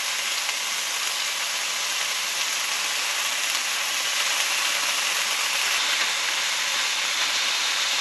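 Thick beef sirloin steak sizzling steadily in a small pan on a portable gas stove.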